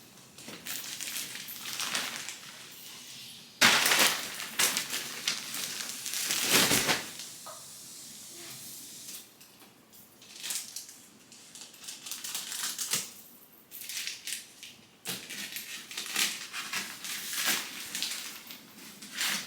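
Plastic packaging crinkling and rustling in irregular bursts as a new crib mattress is unwrapped, with a few louder crunches and quieter pauses.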